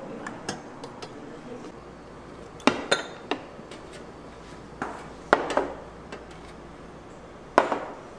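Tableware clattering: about seven sharp clinks and knocks of dishes and utensils, coming in small clusters a couple of seconds apart.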